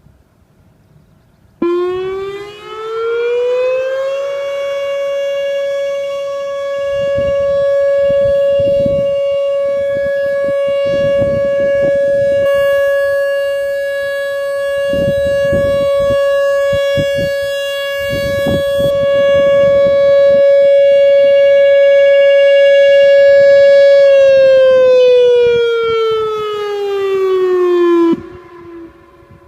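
Outdoor tornado warning siren sounding a test: it winds up in pitch over a couple of seconds, holds one steady tone for about twenty seconds with its loudness slowly swelling and fading, then winds down and cuts off near the end.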